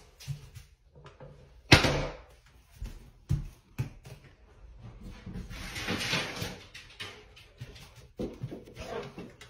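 A few sharp knocks and thumps in a small tiled room, the loudest about two seconds in, with a soft rustling noise in the middle.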